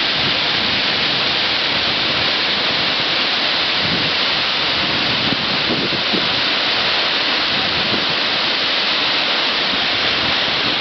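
The Uchan-Su waterfall's falling water: a steady, loud rushing noise that never lets up.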